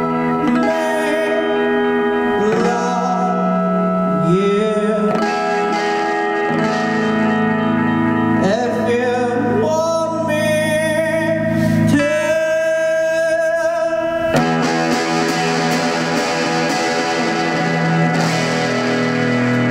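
A male voice singing a wavering, bending melody with electric guitar over a steady sustained drone. The singing stops about fourteen seconds in while the drone and guitar play on.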